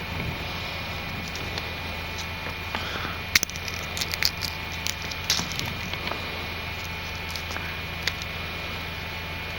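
Dry soybean pods crackling and snapping as they are split open by hand, with a handful of sharp cracks clustered in the middle and one more near the end.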